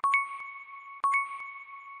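Quiz countdown timer chiming once a second, twice here: each ding is a sharp click followed by a ringing tone with a clear overtone that fades over most of the second.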